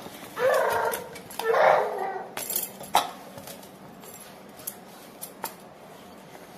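Two short, high-pitched wailing cries in the first two seconds. A few sharp clinks follow, the loudest about three seconds in, as a small steel bowl knocks against a steel mixing bowl while dough is kneaded.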